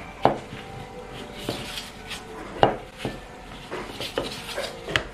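Wooden rolling pin rolling dough out on a plastic cutting board, with a rubbing, rolling sound and sharp knocks of the pin against the board, the three loudest about a quarter second in, midway and near the end.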